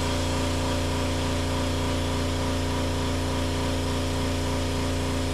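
Air compressor running steadily with an unchanging hum while a tire is being inflated.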